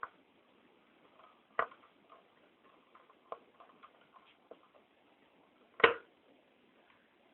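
Sharp clicks and taps of small tools and parts being handled during hand work on a computer hard drive, coming at irregular intervals, with the loudest knock nearly six seconds in.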